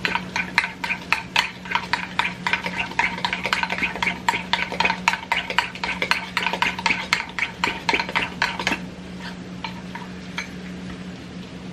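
A utensil stirring and scraping a pot of thick cheesy grits: rapid clinks and scrapes for about eight seconds, then only a few scattered clicks. A steady low hum runs underneath.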